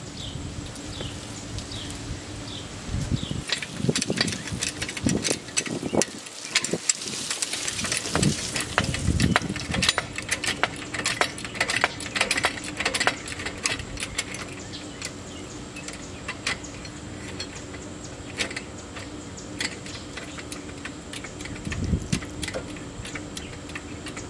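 Metal tools and parts clinking and rattling by hand: a string of irregular sharp clicks and knocks, busiest in the first half and again briefly near the end, over a steady low hum.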